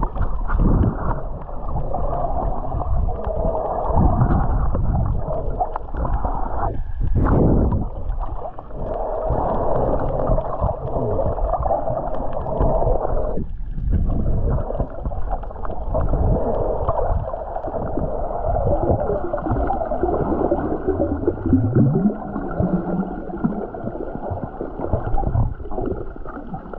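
Muffled underwater sound picked up by a snorkeller's camera: a steady, dull wash of water with gurgling, broken off briefly twice where the clips change.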